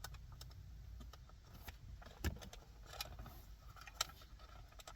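Scattered small plastic clicks and rattles as a wiring connector with a press tab is worked loose from the back of a car's rear climate control panel, the sharpest click about two seconds in, over a low steady hum.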